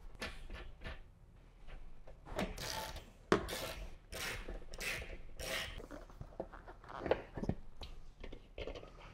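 A Harley-Davidson touring motorcycle seat being pushed into place and its rear mounting bolt driven in with a T-handle hand driver. The seat rubs and scrapes against the tank and fender, with a few sharp metal clicks of the tool and bolt.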